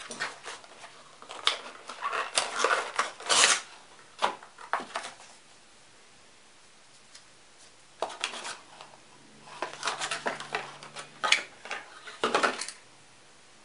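Handling noises: clicks, taps and short rustling scrapes as small parts and packaging are handled, in two spells with a few quiet seconds between them.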